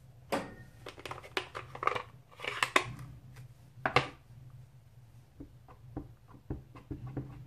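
Irregular plastic clicks and taps as a clear acrylic stamp block is handled and dabbed onto an ink pad in its plastic case, with a sharper click about four seconds in. A faint steady low hum runs underneath.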